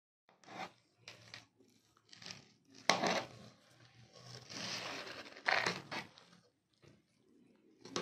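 Slotted spoon turning and fluffing cooked pulao rice in a metal pot: irregular scrapes and rustles of rice and spoon against the pot, with two sharper, louder scrapes about three and five and a half seconds in.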